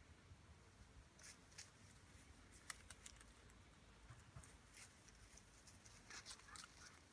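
Near silence: faint rustling with a few soft, scattered clicks, a little cluster of them about six seconds in.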